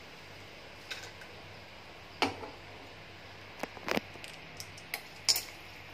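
Papad frying in a wok of hot oil: a faint steady hiss, with a handful of sharp clicks and taps from the metal spoon and the oil. The loudest clicks come a little past two seconds and just after five seconds in.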